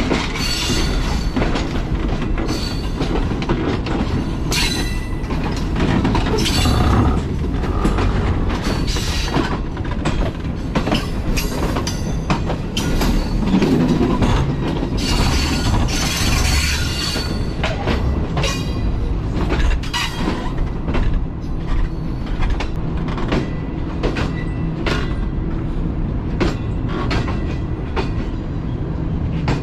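Passenger train wheels rolling over points and rail joints as the train crosses from one main line to the other. A steady low rumble is broken by irregular sharp clacks and knocks throughout.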